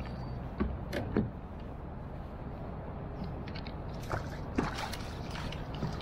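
Kayak fishing handling noise while a hooked fish is played on a spinning rod: steady wind and water noise, with a few short squeaks and knocks from the reel, rod and kayak.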